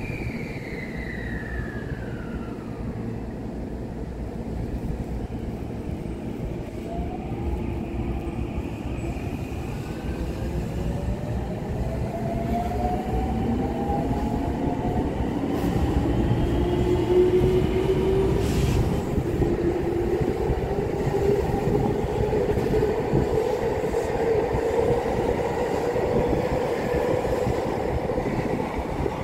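Electric commuter train pulling out of the station. Its traction motors whine in gently rising tones as it gathers speed, over the low rumble of wheels on the rails, growing louder through the first half.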